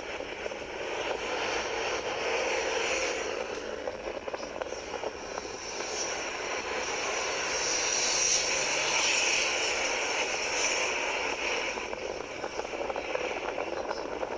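Steady rushing vehicle road noise that swells to its loudest about eight seconds in, then eases.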